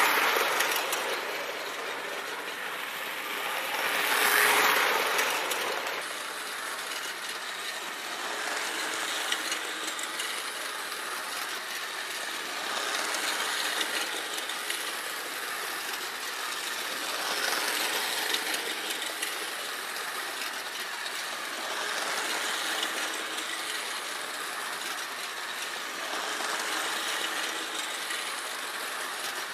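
Vintage electric toy train running around its track: a steady mechanical clatter of its motor gearing and wheels on the rails. It grows louder every few seconds as the train comes round near, and is loudest in the first five seconds.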